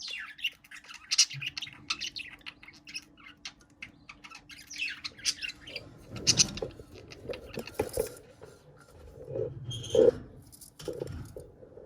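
Budgerigars chirping and squawking in a string of short, high calls, with louder calls from about halfway through.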